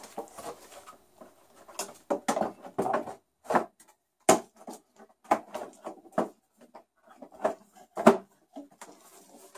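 Irregular clicks, knocks and rattles of a Mosquito Magnet's hollow plastic housing being handled and fitted down onto its base, with the sharpest knocks about four and eight seconds in.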